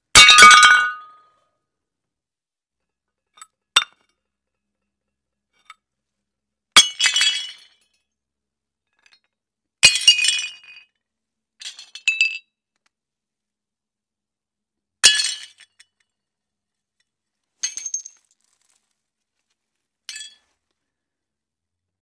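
Plates smashing one after another, about eight separate crashes, each a sharp impact followed by a brief jangle of shards, with silent gaps between. The first crash is the loudest, and a few small clinks fall between the later ones.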